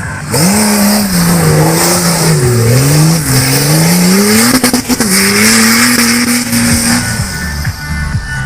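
Off-road competition vehicle's engine revving hard under load, its pitch climbing and dropping several times, with a few sharp knocks about five seconds in. The engine note cuts off about seven seconds in.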